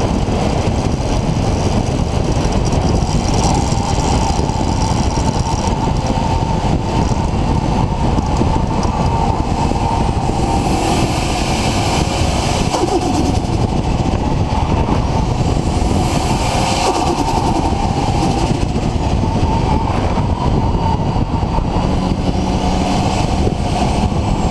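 Nissan RB26 straight-six with a Garrett GTX4088R turbocharger running steadily, with a high whistle that rises and falls twice.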